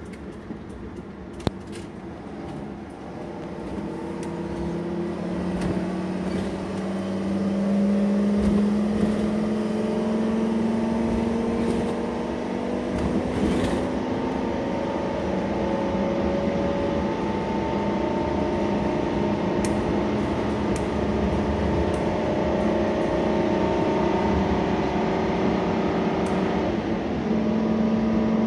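Ford Triton two-valve V10 of a heavy 22,000 lb motorhome, heard from inside the cab, pulling under load as it accelerates slowly up a freeway on-ramp. The engine note climbs slowly in pitch and gets louder, drops back once about halfway through as the four-speed automatic shifts up, then climbs again.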